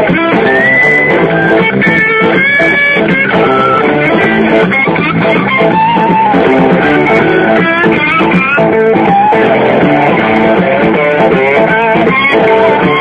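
Music with guitar: a lead line that bends in pitch over held chords, at a steady loudness.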